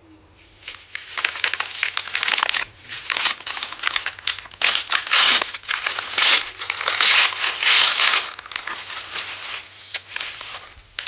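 Parcel packaging being handled and torn open: irregular, loud crinkling and tearing that stops abruptly near the end.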